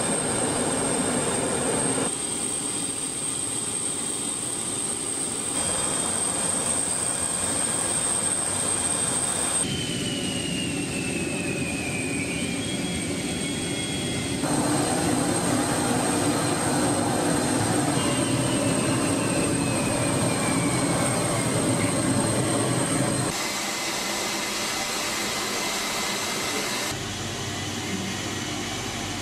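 Steady jet aircraft engine noise, cut together from several shots, with a high whine that twice falls slowly in pitch over a few seconds.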